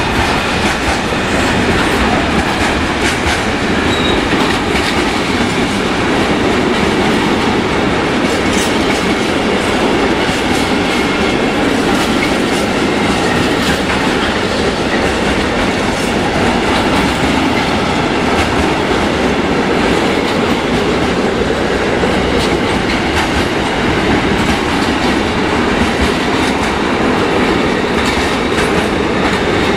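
Freight train of tank containers on flat wagons rolling past at steady speed: a continuous loud rolling noise of the wagons with a steady run of wheel clicks over the rail joints and points.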